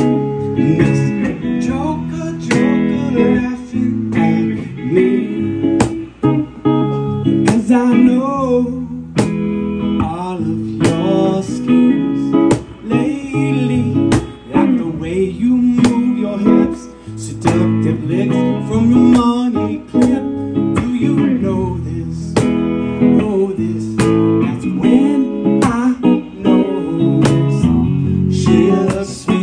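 A recorded song playing: guitar-led music with a steady beat and a singing voice.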